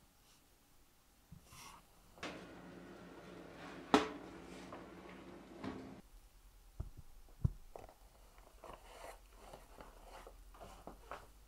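An oven is being loaded with a glass pie dish. The oven runs with a steady electric hum, and there is one sharp clank of the dish or rack about four seconds in. After that come two knocks and a run of light taps and clatter as the glass dish is handled on the counter.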